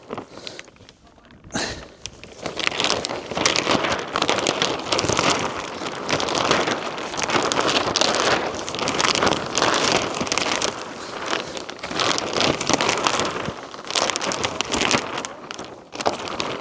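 A large sheet of greenhouse plastic film rustling and crackling as it flaps in strong wind, starting about two seconds in.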